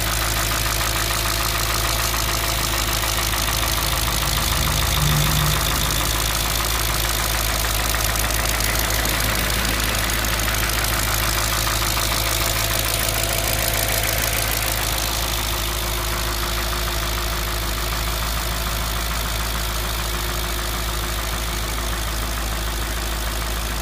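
Audi S4 B6's 4.2-litre V8 engine idling steadily, with a brief slight rise about five seconds in.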